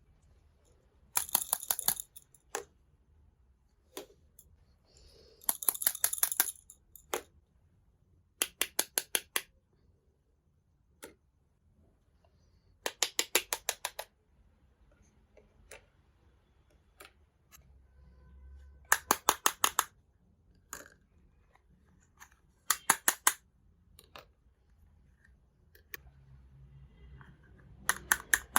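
Scissors snipping in short, quick runs of sharp clicks, about seven runs with pauses between them, as when cutting open toy packaging.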